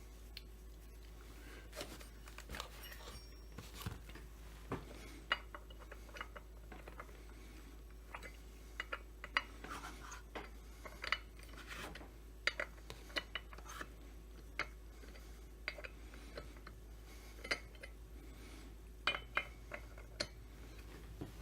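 Irregular light metallic clicks and clinks of small chainsaw parts and tools being handled during assembly.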